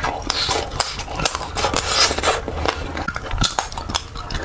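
Plastic packaging of jelly sweets being handled and opened: quick crinkling and crackling with many small sharp clicks.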